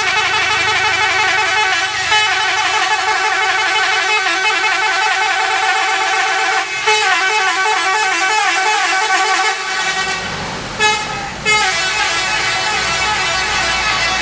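Telolet multi-tone musical horns on Pandawa 87 SHD buses, playing warbling, sliding melodies almost without a break. About ten seconds in a low rumble comes in underneath, and two short loud horn blasts sound about a second apart.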